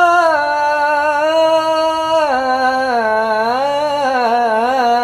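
A man singing a melismatic Arabic mawwal, drawing out one syllable without words: a note held steady for about two seconds, then a drop in pitch and a wavering, ornamented line to the end.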